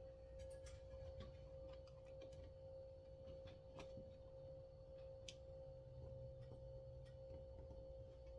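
Near silence: faint, scattered clicks and ticks of small metal parts being handled on a chainsaw recoil starter, over one steady faint tone.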